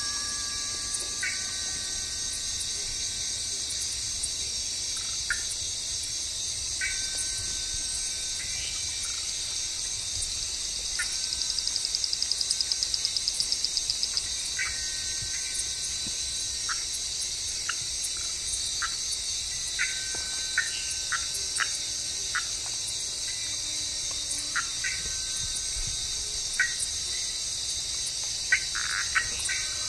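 Tropical forest ambience: a dense, steady high insect chorus with short, level piping calls scattered throughout. About eleven seconds in, a fast pulsing trill rises over it for about three seconds.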